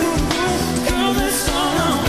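Pop song: a lead voice singing a wavering melody over a steady drum beat and bass line.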